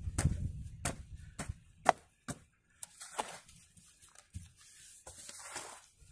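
A hoe chopping into a heap of soil and clods, a string of sharp strikes about two a second in the first three seconds, followed by softer scraping of earth.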